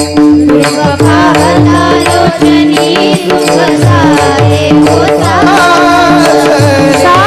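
Devotional kirtan singing: a woman's voice sings an ornamented melody over a steady held drone and a hand drum whose bass strokes slide in pitch. The voice comes in about a second in.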